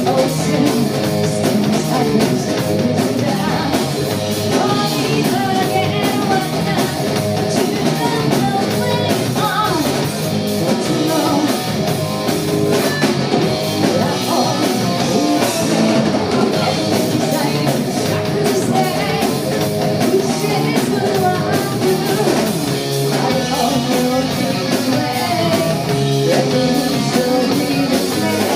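Live rock band playing: a woman singing lead over electric guitar, electric bass and drum kit, loud and without a break.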